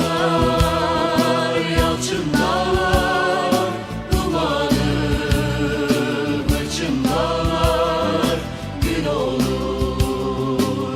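Background music: long held sung notes with vibrato, sliding up into each new phrase every two or three seconds, over a bass line and a steady beat.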